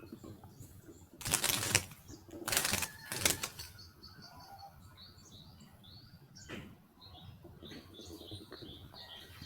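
A small bird caught in garden netting flapping its wings hard in three short bursts in the first few seconds, then faint short high chirps.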